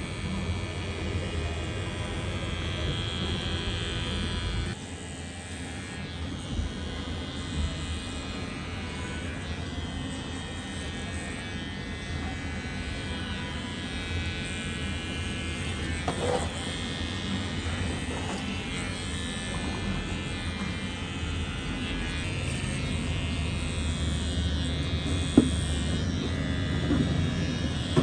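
Electric pet hair clipper running steadily, with a few short knocks in the middle and later part.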